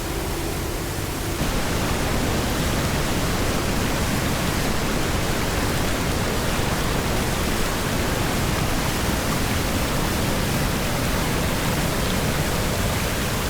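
The Tuolumne River pouring through granite falls and cascades: a steady roar of white water.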